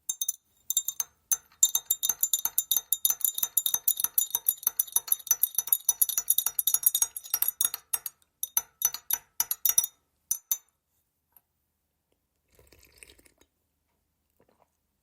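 Teaspoon stirring tea in a cup, clinking quickly and steadily against the sides with a bright ringing. The clinks thin out to a few separate taps about eight seconds in and stop at about ten seconds.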